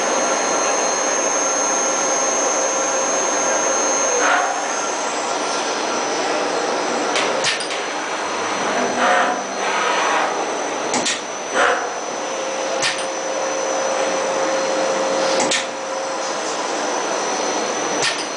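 Vertical CNC machine with an inverted spindle head running, a steady whir with a high whine over it. Sharp clicks and knocks come every few seconds as the head and tooling move, and a steady mid-pitched tone joins for a few seconds past the middle.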